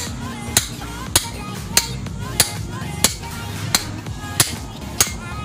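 Hammer blows on an improvised steel driver set in a steering spindle's kingpin bore, driving out the old kingpin bushing. Sharp metallic strikes with a brief ring, in an even rhythm a little under two a second, about nine in all.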